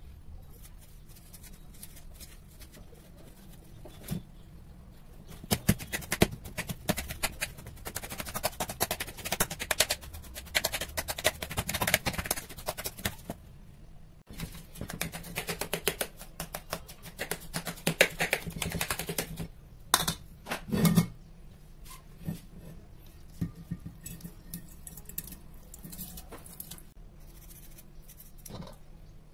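Watermelon flesh being scraped and scooped out of the rind: quick wet scraping strokes and clicks in two long spells. A few louder knocks come near the end of the second spell.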